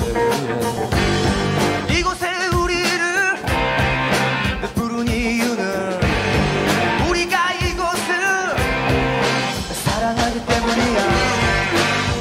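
Rock band playing, with a male voice singing over electric guitar and a steady drum beat.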